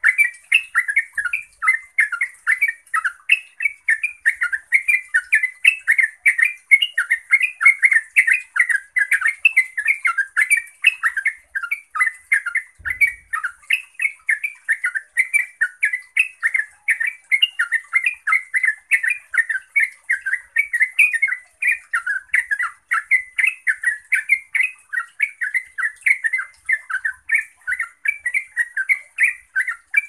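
Yellow-vented bulbul singing its continuous 'ropel' song: a long, unbroken run of rapid chattering notes, several a second, with no pauses.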